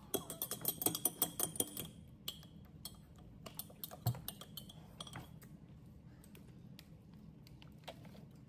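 Utensils, dishes and food being handled at a meal table: a quick run of small clicks and clatters in the first two seconds, then scattered taps and a soft low thump about four seconds in.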